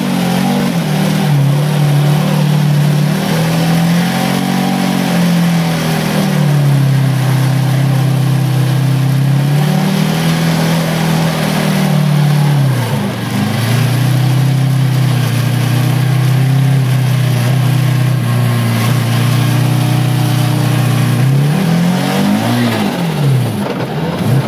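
Rally car engine heard from inside the cabin, driven hard, its revs rising and falling through the gears, with quick drops and climbs in revs about halfway through and again near the end.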